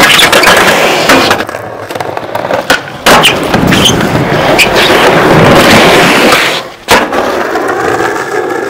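Skateboard wheels rolling loudly on rough pavement, with several sharp clacks of the board hitting the ground. The rolling noise breaks off and starts again abruptly a few times.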